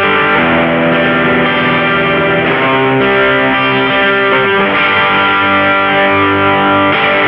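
Electric guitar played through a JOYO Deluxe Crunch distortion pedal: chords let ring and changing every second or two, with a gritty, distorted tone.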